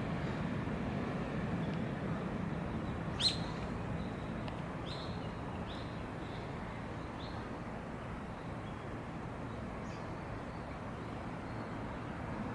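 A small bird chirping: one sharp, rising chirp, then a quick series of five or so short, high chirps, over a steady outdoor hum.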